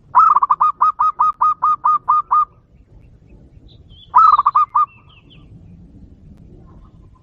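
Zebra dove calling: a rapid run of about a dozen clipped notes, then a shorter run of about six notes a couple of seconds later. A few faint high chirps come in between.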